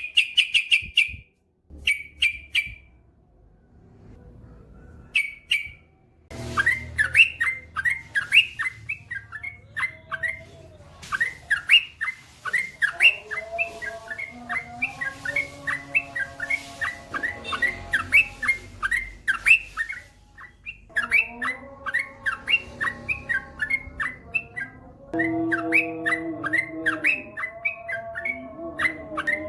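Yellow-vented bulbul (trucukan) singing: a few short separate calls, then from about six seconds in a long, rapid run of chirping notes that carries on, with lower wavering tones beneath.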